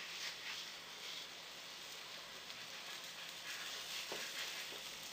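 Floured cod fillet sizzling gently in a frying pan, a faint steady hiss, with a light knock about four seconds in.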